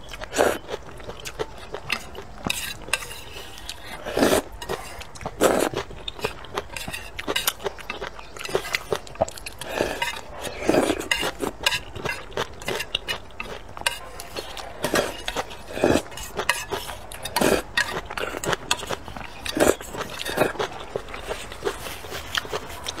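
Metal chopsticks clinking and scraping against a stainless steel pot, mixed with the slurping and chewing of sweet potato vermicelli noodles, in many short irregular bursts.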